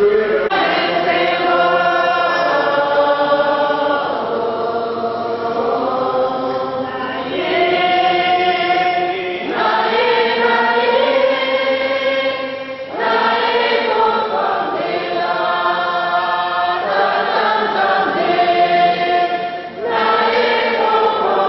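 Choir singing a hymn, many voices holding long notes in phrases that break off and start again every few seconds.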